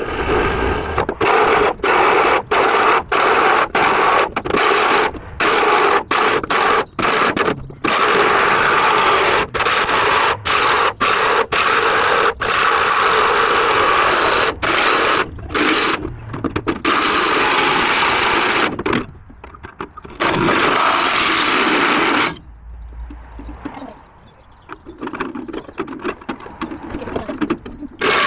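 Cordless drill driving a hole saw through the van's sheet-steel floor, the teeth grinding loudly in the metal, with many brief stops and starts of the trigger. For roughly the last six seconds the cutting is quieter and comes and goes.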